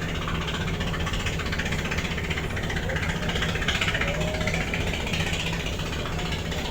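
Steady low drone of a car ferry's diesel engines running, with a constant hiss over it.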